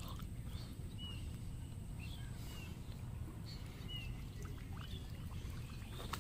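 Quiet outdoor ambience: a steady low rumble with short, faint, high bird chirps that dip in pitch, about one every second.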